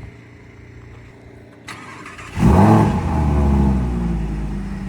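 Lamborghini Huracán Evo's V10 engine starting: a short crank, then it catches about two seconds in with a loud rev flare that falls back and settles into a fast, steady idle.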